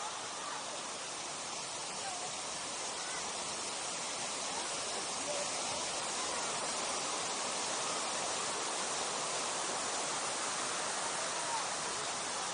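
Steady rushing of water, even and unbroken, with faint voices in the background.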